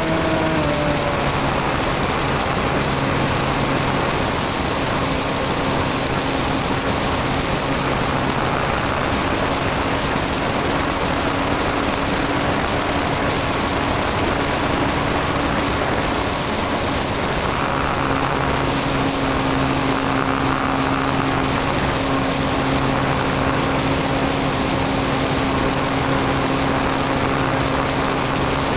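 Small model-airplane engine and propeller running steadily in flight, heard close up from a camera mounted beside it, with wind noise. The engine note drops a little about a second in, then holds steady.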